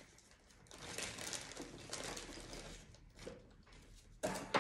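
Packaging rustling and crinkling as small detector accessories are handled, with a sharp knock near the end.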